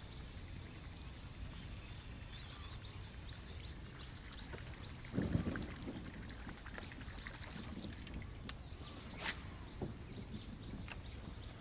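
Water splashing and trickling at the surface, with a dull thump about five seconds in and a couple of sharp clicks near the end.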